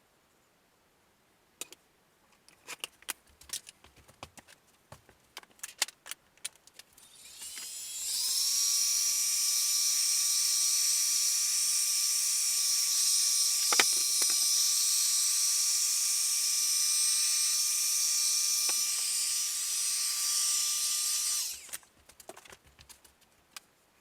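Scattered clicks and taps, then a homemade 12-volt squirrel-cage blower, built from a car heater's fan motor and impeller, spins up with a rising whine. It runs steadily for about thirteen seconds with a high whine over rushing air, then stops quickly, and a few more clicks follow.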